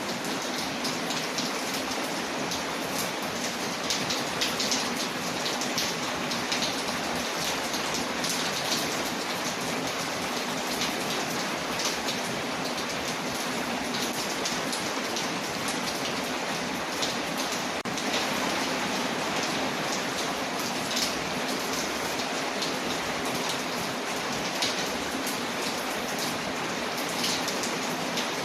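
Steady rain on a window, with scattered sharp crackles and pops from a wood fire mixed in.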